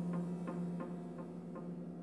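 Steinway grand piano playing sparse contemporary music: a low tone is held ringing while a higher note is struck over and over, about three times a second, slowly fading.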